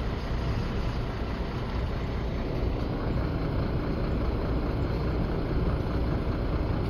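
Heavy vehicle engine running steadily, a low rumble with no sudden changes.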